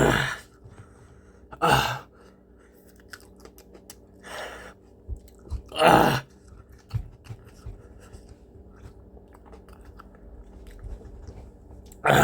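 Close-up chewing of a mouthful of raw habanero peppers, tough and rubbery to chew, with small wet clicks. About four short, sharp breaths are forced out against the chili heat, the loudest about six seconds in.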